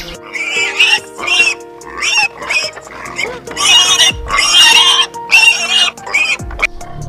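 Pig squealing repeatedly, about ten short shrill cries, over steady background music.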